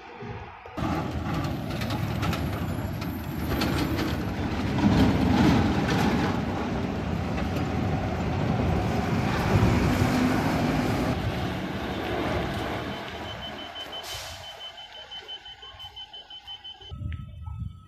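A large diesel bus engine running close by as the bus manoeuvres, loudest in the first half and then fading away. Near the end comes a brief hiss, along with a fast run of high, evenly spaced reversing beeps.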